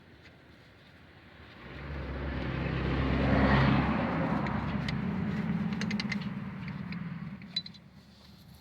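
A car driving past, its engine and tyre noise rising to a peak about three and a half seconds in and then fading away. A few light metallic clicks near the end.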